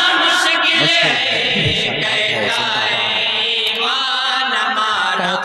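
A group of men chanting a naat together in chorus, several voices singing at once into a microphone.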